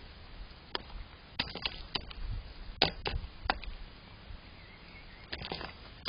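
Gull's bill pecking and knocking against a stainless steel food bowl as it feeds: sharp, irregular taps, several coming in quick clusters.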